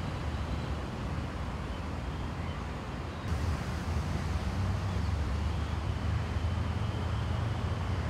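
Steady low rumble of road traffic under a general outdoor hiss, a little louder from about three seconds in.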